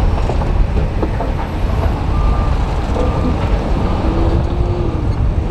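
Heavy diesel engines of a Shantui bulldozer and a tipping dump truck running with a steady low rumble.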